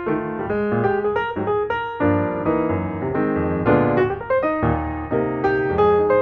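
Background piano music: a melody of quick notes over lower chords that change every second or two.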